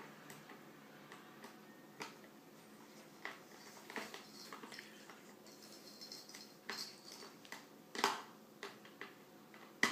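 Scattered light clicks and taps of small laptop parts and screws being handled during reassembly, with a brief high scrape about six seconds in; the sharpest click comes a little after eight seconds in.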